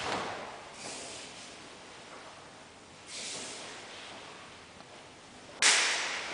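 A karateka's forceful, hissing breaths while performing a kata: softer exhalations about a second in and about three seconds in, then a sharp, loud one near the end.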